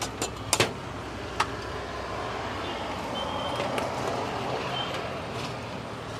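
Steady outdoor road traffic noise that swells a little in the middle, with a few sharp clicks in the first second and a half from the long metal handles of a cast-iron sandwich toaster being handled.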